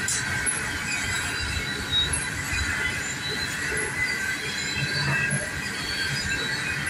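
Freight train of open-top hopper cars rolling past at close range: a steady rumble of steel wheels on the rails, with thin high-pitched squealing from the wheels running through it.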